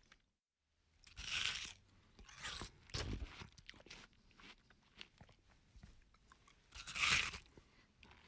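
A person biting into and chewing something crunchy: loud crunches about a second in and about seven seconds in, with smaller crackling chews between.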